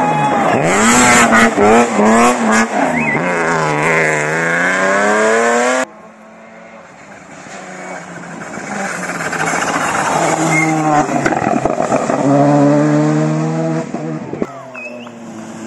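Rally car engines at full racing revs, the pitch rising and falling sharply through gear changes as a car passes. About six seconds in the sound cuts off abruptly, then another rally car approaches, its engine growing louder and climbing through the gears.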